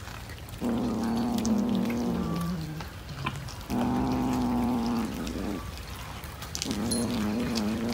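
A domestic cat giving three long, low, drawn-out yowls, each lasting one to two seconds, the first dropping in pitch at its end.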